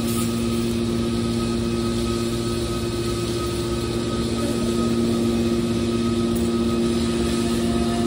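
Hydraulic scrap metal baler's power unit running steadily: an even mechanical hum with a held whine.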